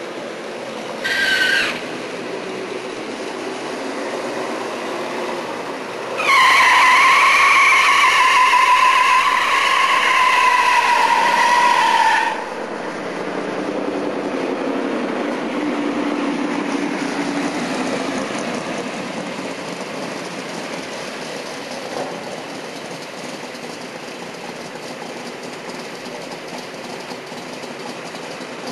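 A drag-racing 1967 Mustang GTA's rear tyres squealing in a burnout behind its 390 V8. A short chirp comes about a second in, then a loud, steady squeal lasting about six seconds that cuts off abruptly. The engine keeps running afterwards, easing off after a few seconds.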